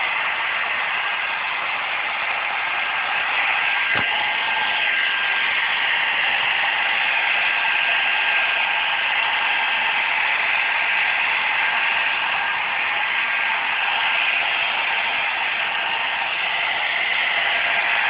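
Handheld hair dryer running steadily: an even blowing whir with a faint steady whine, and one brief click about four seconds in.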